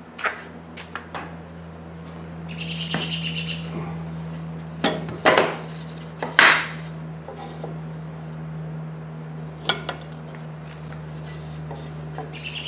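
A drawer board being fitted and clamped into a dovetail jig: scattered clicks, knocks and scrapes of wood and metal, two louder ones about midway, over a steady low hum. Two short chirping bursts come in, one early and one at the end.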